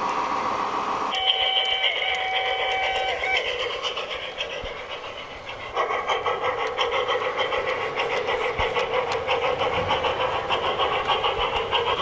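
Sound unit of a garden-scale model steam locomotive: a steady whistle tone held for about two seconds, then from about halfway a rapid, even, rhythmic running sound.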